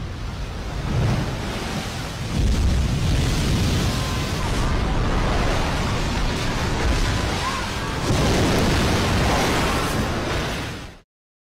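Tsunami surge of seawater rushing ashore and over buildings: a loud, continuous rushing roar that swells a couple of times and cuts off suddenly near the end.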